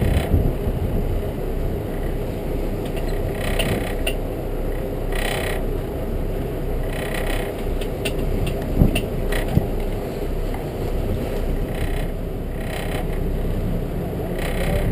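Fishing reel being cranked to bring in a hooked fish, its gears and pawl clicking and whirring, over a steady low rumble, with a couple of sharp knocks about two thirds of the way through.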